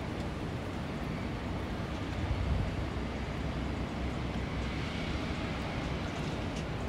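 Steady outdoor city noise: a low, continuous rumble of traffic with no single event standing out.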